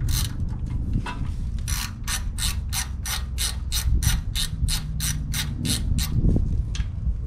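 Hand socket ratchet clicking steadily, about four clicks a second, as a brake caliper bolt is turned out.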